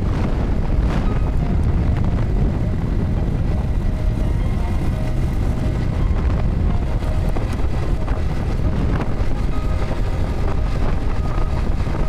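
Wind rushing over a phone's microphone on a moving motorcycle, a steady heavy rumble with the bike's engine running underneath.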